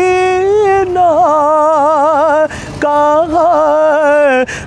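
A man singing a naat in Urdu, drawing out long held notes with wavering, ornamented turns of pitch, with a brief breath break about halfway through.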